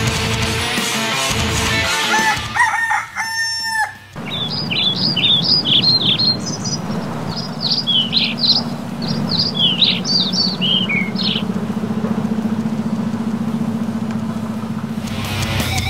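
A rooster crows once, then small birds chirp in a quick run of high notes for several seconds over a steady low hum.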